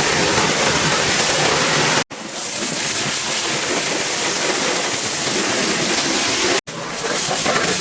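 High-pressure water spray from a large pressure washer, a loud steady hiss. It cuts out abruptly twice, about two seconds in and near the end, and resumes at once.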